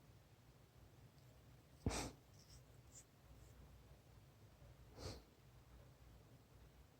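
Near silence broken by two short scratchy strokes, a louder one about two seconds in that starts with a click and a softer one about three seconds later: a young cat licking a person's hand with its rough tongue.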